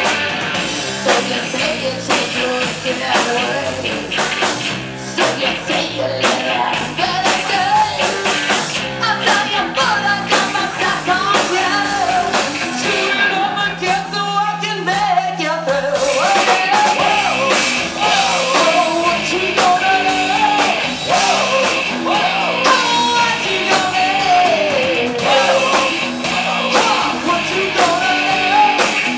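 Live rock band playing: a woman sings a wavering melody over electric guitars and drums, with a brief break in the drumming and a held low note about halfway through.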